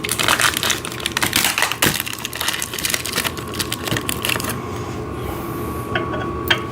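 Steel parts of a sissy squat machine frame rattling and clicking as a bar is slid into place and a bolt is lined up. The quick clatter is busiest for about the first four seconds, then thins to a few sharp clicks near the end.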